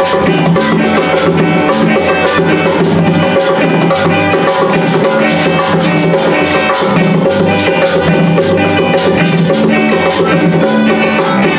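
Band music: a harmonica playing the melody over strummed acoustic guitar and electric bass, with a steady beat.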